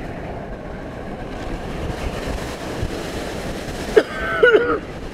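Steady rushing of wind over the microphone, with a vehicle's road noise, through an open car window. About four seconds in, a brief wavering voice-like sound cuts in.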